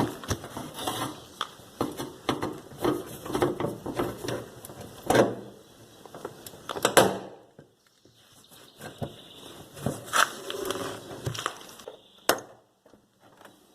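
Prying at a car door trim panel: scraping, rustling and knocking of the tool against the panel, with a few sharp snaps as the metal retaining clips pop out of the cardboard-backed panel.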